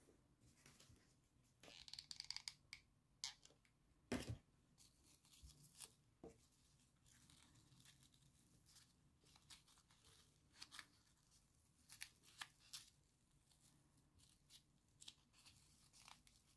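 Faint rustling and clicking of fingers handling and pressing grosgrain ribbon bows together. A brief scratchy rustle comes about two seconds in, and a sharper tap about four seconds in.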